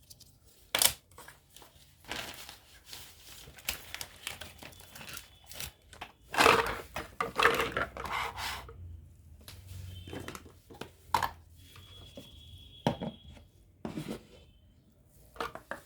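Plastic packaging crinkling and tearing as a toy kitchen set is unboxed, with scattered sharp clicks of small plastic toy pieces being handled. The crinkling is loudest about six to eight seconds in.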